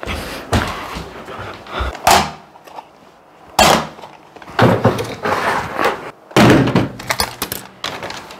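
A door bangs, then comes a series of knocks and clatters from plastic video cassette boxes being handled.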